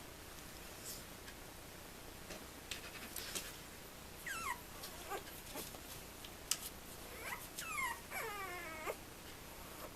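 Young puppy whimpering: a run of high squeals that each fall in pitch, starting about four seconds in, the longest one near the end. A few soft clicks come before them and one sharp click in the middle.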